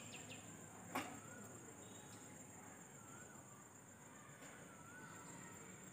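Faint, steady high-pitched insect drone, typical of crickets, with a single sharp click about a second in and a few faint short chirps.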